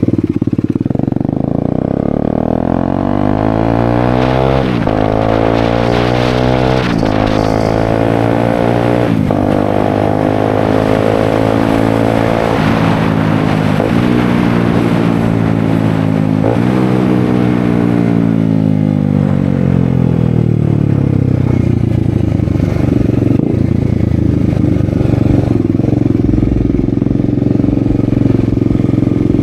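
Bajaj Dominar 250 single-cylinder engine running loud through an exhaust with its end silencer removed. It accelerates hard, the pitch climbing and dropping sharply at several upshifts, then winds down as the bike slows and settles into a steady low running note for the last several seconds.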